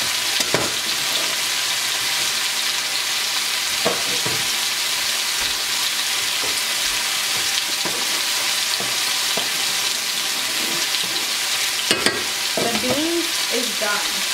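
Chicken breast pieces sizzling steadily as they fry in a nonstick pan, with a few short knocks, the sharpest about 12 seconds in.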